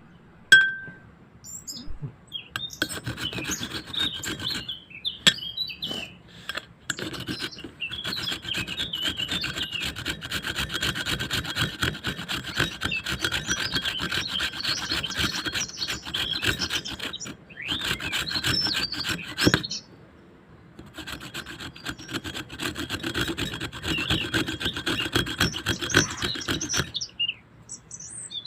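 Fast, continuous rasping scrapes by hand, like food being rubbed on a grater, starting a few seconds in and stopping near the end with a short break about two-thirds through. Birds chirp faintly before the scraping starts and after it stops.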